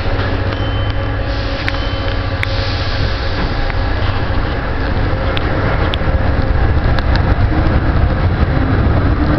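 MF67 steel-wheeled metro train, heard from inside the car, pulling away from a station and gathering speed. A heavy running rumble with a few sharp clicks grows louder in the second half, and a whine rising in pitch starts near the end.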